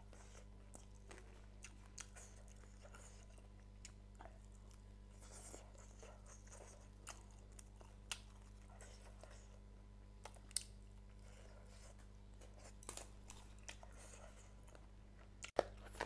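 A person chewing and crunching food at a meal, in many small crackles and clicks, with a few sharper clicks. A low steady hum runs underneath.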